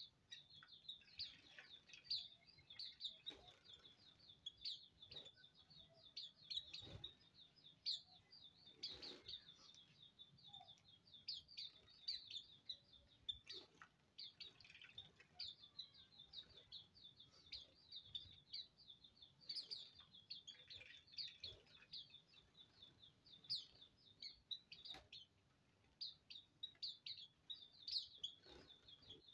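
A small flock of Hume's white-eyes (Zosterops auriventer) calling continuously: rapid, high, thin chirps tumbling over one another, with a few faint taps among them.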